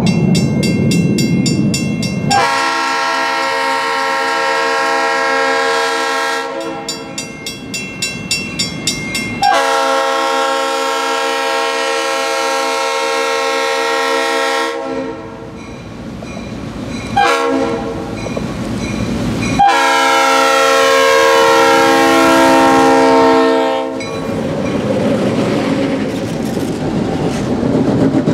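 Diesel locomotive air horn on an ex-Florida East Coast GP38-2 sounding the grade-crossing signal: two long blasts, a short one and a final long one, with a crossing bell ringing in the gaps. After the last blast the locomotives pass close by, engines running and wheels clacking over the rails.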